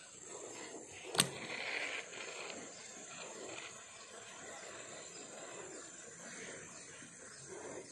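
Baitcasting reel being handled: one sharp click about a second in, then a brief hiss. After that, only a faint steady background hiss.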